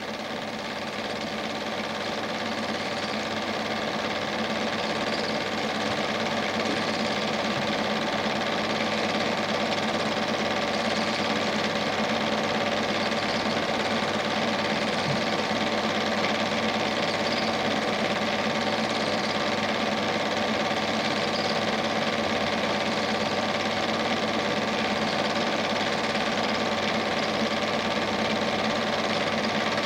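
Steady mechanical whirr and clatter of a Standard 8 cine projector running its film, the motor and film transport heard as the silent film is shown and copied to tape. It grows a little louder over the first few seconds, then holds even.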